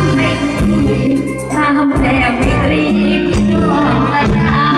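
Live band music played loud through a PA system, with a woman singing into a microphone over steady bass notes.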